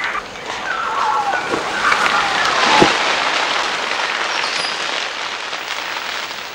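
Branches and leaves rustling and crackling as black-handed spider monkeys move through the tree canopy, with a sharp crack about three seconds in. Twice there is a high call that slides down in pitch.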